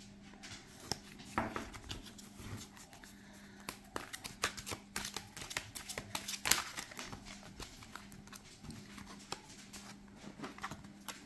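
Oracle cards being shuffled by hand: a run of quick, soft clicks and slaps of card against card, busiest in the middle.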